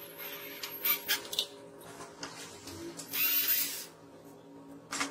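Hand-tool work on the welder's wiring: a few short scrapes and clicks, then a louder rasping scrape lasting under a second a little past the middle, over steady background music.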